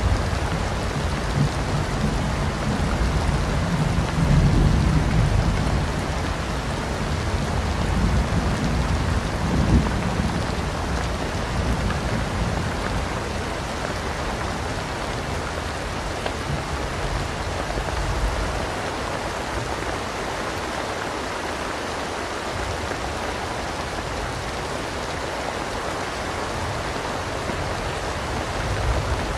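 Steady heavy rain in a thunderstorm, with deep rolls of thunder swelling in the first half. The thunder dies away, leaving only the rain, and a new rumble begins at the very end.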